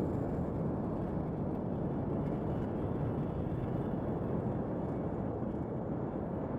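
Sci-fi alien-planet jungle ambience: a steady, dense low drone of noise that stays even throughout, with no distinct calls or events standing out.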